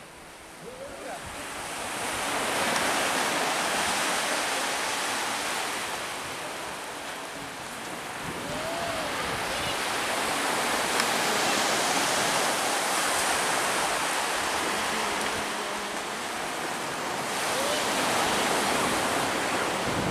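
Sea surf washing onto a beach: a steady rushing hiss that swells and eases over several seconds at a time.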